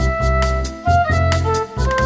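Background music: a melody of held wind-like notes over a deep bass line, with a steady ticking beat.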